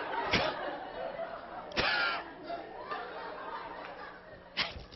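Theatre audience laughing and murmuring, with three sharp puffs of breath into a microphone, the loudest near the middle: a comedian mimicking an upset woman huffing.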